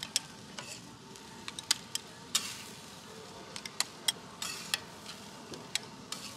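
Two metal spatulas scraping and clacking on a flat-top steel griddle as corn kernels and melted cheese are tossed, over a steady sizzle. The clacks come as irregular sharp clicks, with a few longer scrapes.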